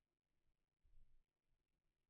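Near silence: faint room tone, with one brief, faint low thump about a second in.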